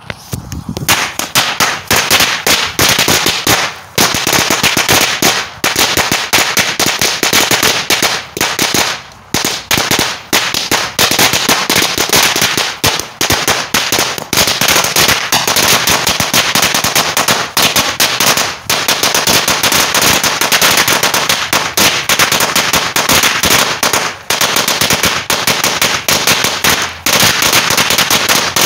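A 16,000-shot roll of red firecrackers going off in a continuous rapid crackle of bangs. It starts about half a second in and runs on with only brief lulls.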